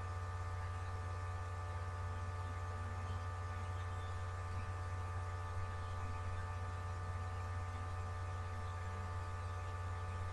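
Steady electrical mains hum, a constant low drone with a row of higher steady overtones; nothing else stands out.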